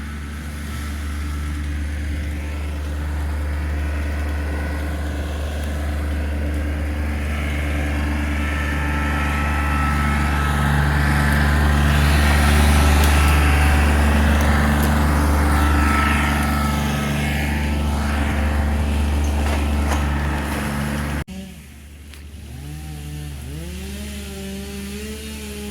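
An engine running steadily, getting louder toward the middle. After an abrupt cut near the end, a quieter engine revs up and down several times.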